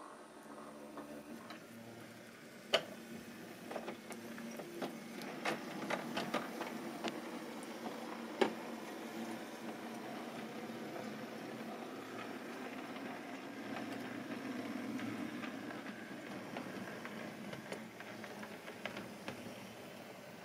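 A 0 gauge (7 mm scale) model locomotive running along the track: the steady whir of its motor and gears, with scattered clicks of its wheels over rail joints and pointwork. The two sharpest clicks come about three and eight seconds in.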